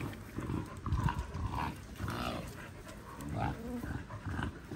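Puppies play-fighting, making low vocal noises in irregular short bursts.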